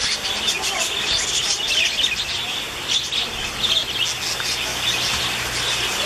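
Many small birds chirping continuously: a dense, overlapping chorus of short, high calls with no pause.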